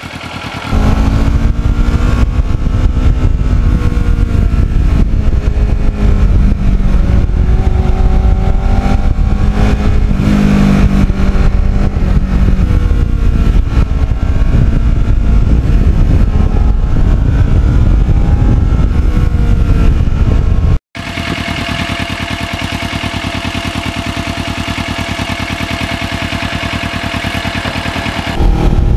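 2009 Kawasaki Ninja 650R's parallel-twin engine heard from on board while riding, its revs rising and falling. After a brief cut about 21 seconds in, the engine holds a steadier, somewhat quieter drone at an even speed until near the end.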